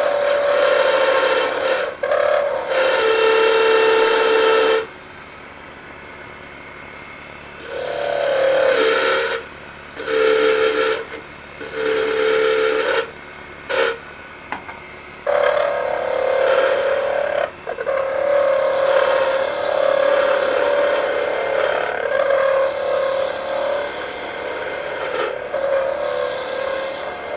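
Skew chisel cutting a thin spindle of wood spinning on a lathe: a hissing cut with a steady whining tone over it, from a noise and vibration in the thin workpiece that the turner could not get out. The cut stops for a couple of seconds about five seconds in, comes and goes in short passes, then runs steadily through the second half.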